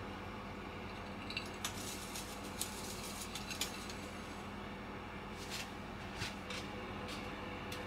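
Granulated sugar poured from a small glass dish into a coated frying pan: scattered light ticks and patters as clumps and grains land in the pan, over a steady low hum.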